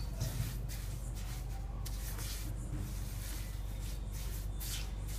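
Silicone spatula stirring and scraping semolina roasting in ghee around a nonstick pan, in repeated uneven strokes, over a steady low hum.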